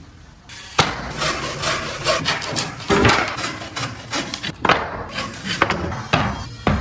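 Hand tools working a block of wood: irregular scraping and cutting strokes with several sharp knocks, starting about a second in.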